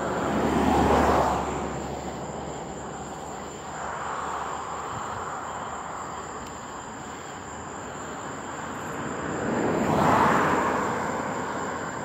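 Two vehicles passing by on a road, one near the start and one near the end, each a swell of tyre and engine noise that rises and fades over a couple of seconds, over a steady thin high tone.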